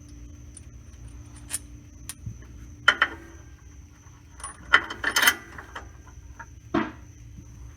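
Hand tools and steel hardware being handled: scattered metal clinks and clanks, with a busy cluster of them about five seconds in.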